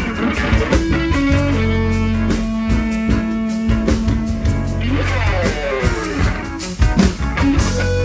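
Overdriven electric guitar solo played live over bass and drum kit. About a second and a half in, a single note is held for some three seconds. Around five seconds in come sliding, falling runs and string bends.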